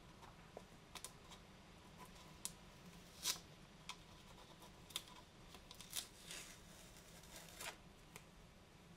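Faint, scattered clicks, taps and brief rubbing of hard plastic as a KitchenAid shave ice attachment's white housing and clear cup are handled and turned in the hands. The loudest click comes about a third of the way in.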